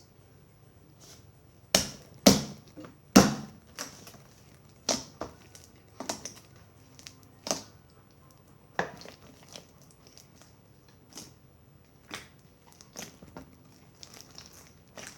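Slime being kneaded and squished by hand, giving irregular sharp pops and crackles, loudest about two to three seconds in.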